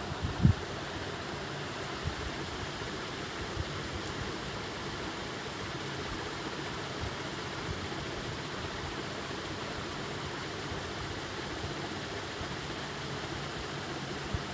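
A steady hiss of background noise, with one short thump about half a second in.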